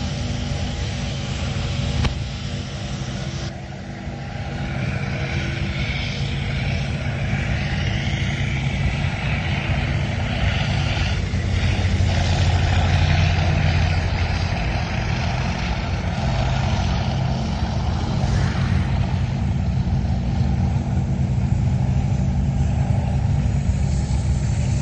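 Tank engines running as tanks drive past: a steady low drone that dips a few seconds in, then grows louder toward the middle.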